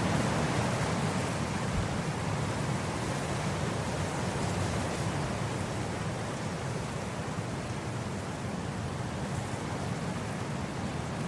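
Wind blowing across grass: a steady, even rushing that slowly eases off.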